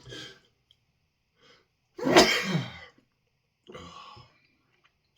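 A man spluttering from inhaled chili pepper dust: a short burst at the start, one loud, sudden cough or sneeze about two seconds in, and a quieter one near four seconds.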